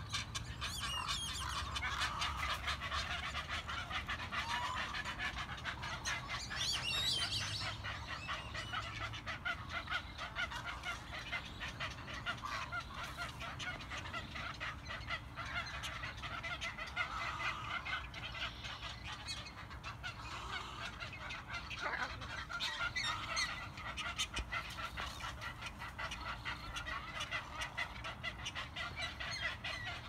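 A roosting colony of egrets and other wading birds calling: a dense, unbroken chorus of many short, overlapping calls. There are a few high, wavering whistles about one second and seven seconds in.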